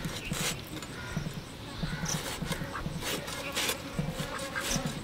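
Stingray pieces being cut on a boti, a curved blade: short rasping strokes as the tough skin and cartilage are pushed through the steel edge, coming irregularly about once a second.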